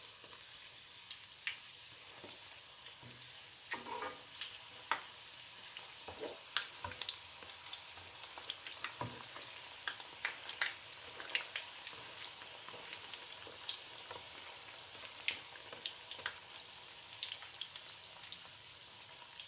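Chicken meatballs frying in a wok of hot oil: a steady sizzle with frequent crackling pops.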